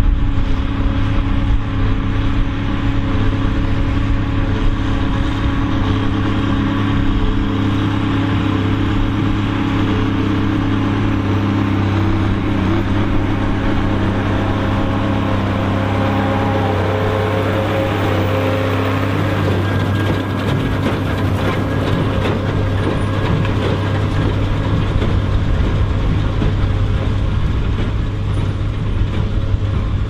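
Ford TW-30 tractor's diesel engine running steadily under load while pulling a New Holland 4860S large square baler, with the baler working.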